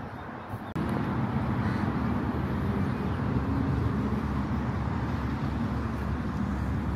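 Steady rumbling noise of road traffic, which steps up louder abruptly about a second in.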